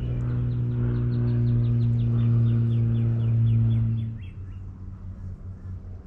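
A songbird sings a long series of quick, evenly spaced chirps that slowly fall in pitch. A louder steady low motor hum runs beneath it and cuts off about four seconds in.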